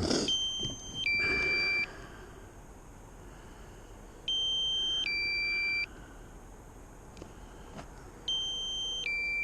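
Drone remote controller sounding its low-battery warning: a higher beep falling to a lower beep, repeated three times about four seconds apart, because the aircraft battery has dropped below the warning threshold.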